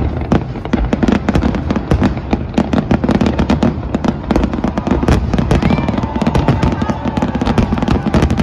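Aerial fireworks shells bursting in a rapid, dense barrage, many loud bangs a second with crackle between them and no let-up.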